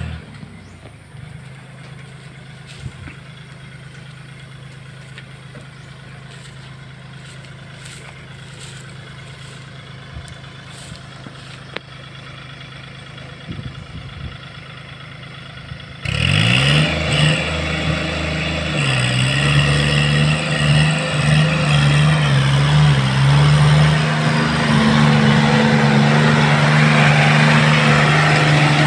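Kubota compact tractor's diesel engine running steadily, then about halfway through it revs up and runs much louder and steadily close by.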